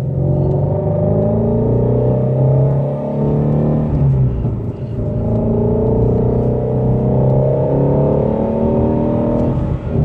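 Ford Shelby GT350's 5.2-litre flat-plane-crank V8 accelerating hard with its active exhaust valves open, heard from inside the cabin. The engine note rises in pitch, drops at an upshift about four seconds in, then climbs again until another shift near the end.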